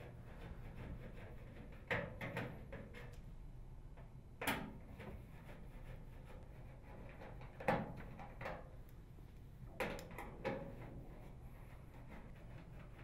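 Faint clicks and light knocks in a few small clusters from a screwdriver fitted with a T15 tamper-proof Torx bit and the screws it is removing from the rear of a microwave oven's outer cover.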